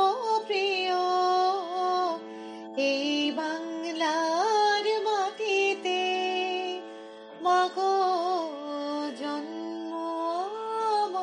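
Music from a slow Bengali song: long held notes that slide between pitches over a steady low drone, with a woman singing.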